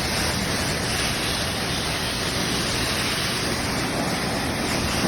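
High-velocity dog dryer blowing at its highest speed, a steady, even rush of air.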